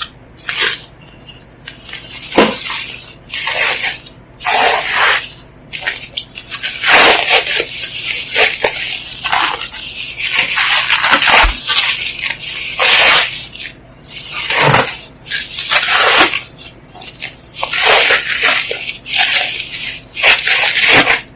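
Parcel packaging being unwrapped by hand: plastic wrapping crinkling and rustling in repeated irregular bursts.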